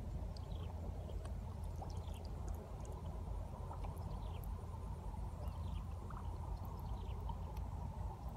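Trapped fish thrashing and splashing in a shallow pit of muddy water, over a steady low rumble, with short falling chirps now and then.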